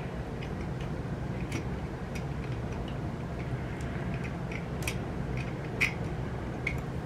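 Small screwdriver tightening the rangefinder mounting screws on a Mamiya Super 23 camera body: scattered light metallic clicks and ticks of the tool against the screw heads and the metal body, one a little louder about six seconds in, over a steady low hum.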